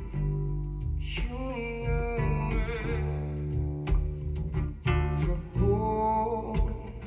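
A guitar-led song with bass and a melody line that slides in pitch, played through Yamaha NS-1000 three-way loudspeakers driven by an EL84 push-pull tube amplifier.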